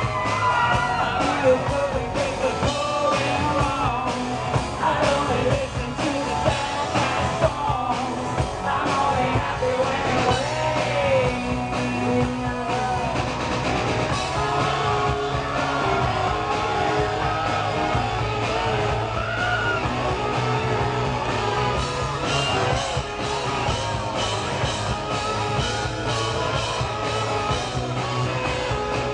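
Live rock band playing, with singing over the band.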